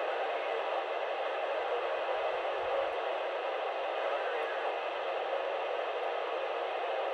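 Steady FM receiver hiss from a dual-band mobile ham transceiver's speaker, its squelch open on 437.800 MHz, the International Space Station's downlink, with no intelligible signal coming through.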